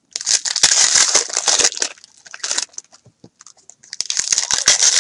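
Foil wrapper of an Upper Deck hockey card pack crinkling and tearing as it is opened by hand. The rustling comes in two spells, with a short burst between them.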